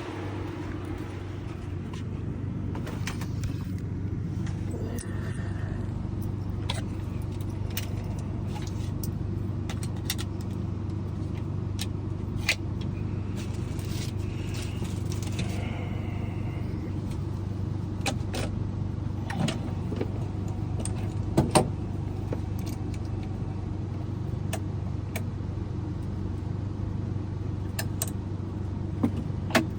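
Steady low motor hum with scattered clicks and light jingles of keys and small metal parts being handled; a few sharper clicks come about two-thirds of the way through and near the end.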